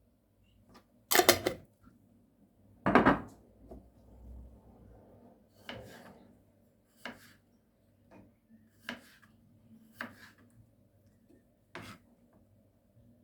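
Kitchen prep sounds of utensils and dishes on a counter or cutting board. Two loud clattering knocks come about one and three seconds in, then lighter knocks and scrapes every second or two.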